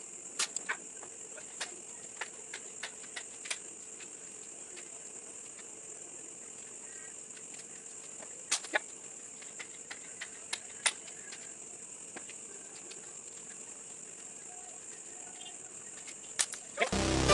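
Shots from a .177 Sharp air rifle: scattered short sharp clicks, the loudest about half a second in and again a little past the middle, over a steady high-pitched background tone.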